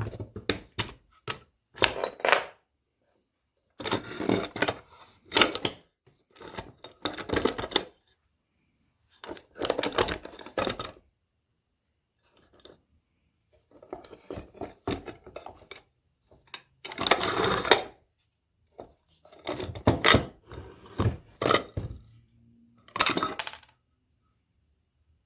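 Metal parts and hand tools clinking and clattering as they are handled on a workbench, in irregular bursts of rattling with short quiet gaps between them.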